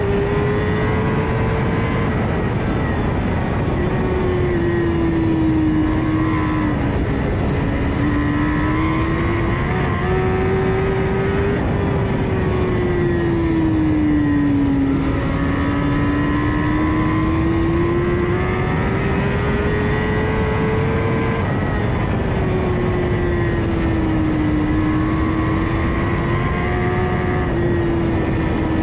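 Kawasaki ZX-10R's inline-four engine at racing revs, its pitch climbing in long pulls down the straights and falling away into the corners several times. Heavy wind rush runs underneath.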